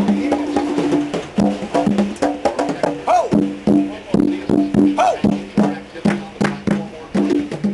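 Two percussionists playing a fast, even rhythm: repeated low pitched drum strokes mixed with sharp clicking hits.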